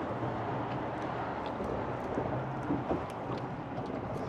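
Wind and choppy lake water against a small boat's hull, with a low steady hum that fades in and out.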